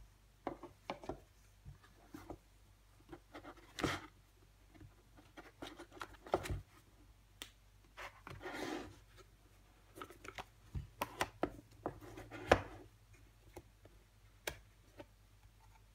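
Hands handling a CD album box: cardboard and paper inserts being lifted, slid and set down, with scattered taps and knocks and a few short paper swishes.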